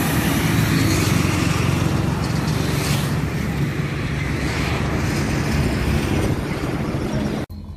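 Highway traffic noise at the roadside: trucks, cars and motorcycles passing, one vehicle going by louder about three seconds in. The sound cuts off abruptly just before the end.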